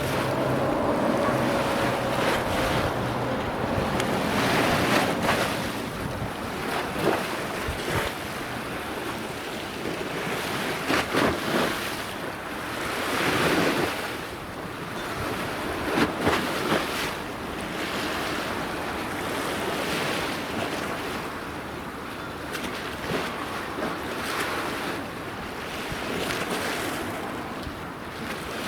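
Wind buffeting the microphone over a steady rush of sea water, swelling and easing in gusts every few seconds.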